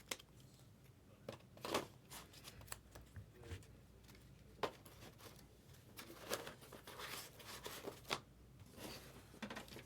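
Trading cards and their packaging being handled close up: scattered rustles, crinkles and light clicks, with sharper snaps about two seconds in and again near five seconds.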